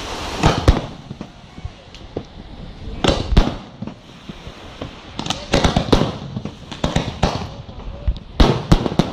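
Aerial fireworks bursting overhead: a string of sharp bangs coming in clusters, with quieter stretches between the volleys.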